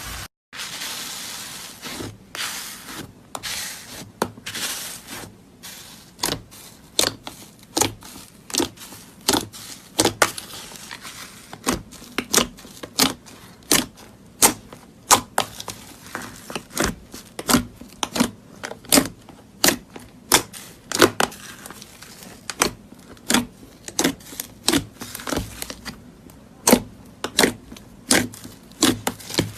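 Slime being pressed and squeezed by hand, with crinkly crackling for the first few seconds, then a long run of sharp popping clicks as air pockets burst, roughly one to two a second.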